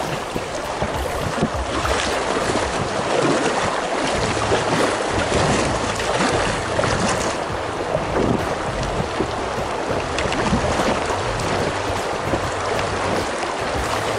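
Fast glacier-fed river current rushing steadily around a packraft, with wind buffeting the microphone and the occasional splash of the paddle.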